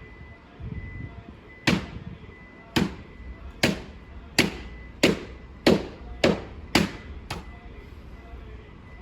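A series of nine sharp knocks, irregularly spaced about half a second to a second apart, then stopping.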